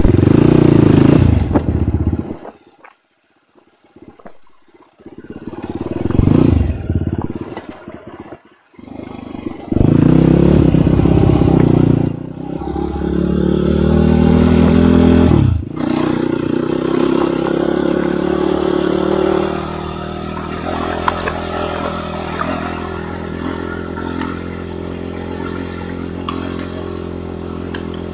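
Enduro motorcycle engine revving in loud bursts, dropping away almost to nothing twice in the first nine seconds. It then pulls with rising pitch, falls sharply about fifteen seconds in, and runs on steadily after that.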